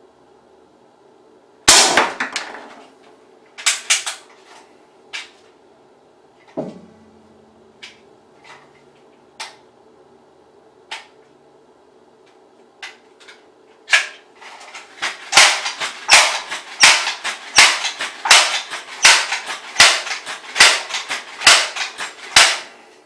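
Pellet gun firing at a metal Band-Aid tin. One loud crack comes about two seconds in, with the tin knocked out of place. Scattered quieter clicks follow, then a fast string of about sixteen shots, roughly two a second, in the last nine seconds.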